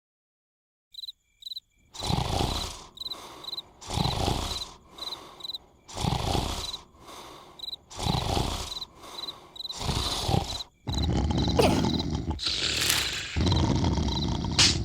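Cartoon snoring: loud snores swelling and fading about every two seconds, with crickets chirping steadily underneath. From about eleven seconds in the snoring turns into a longer, louder unbroken stretch.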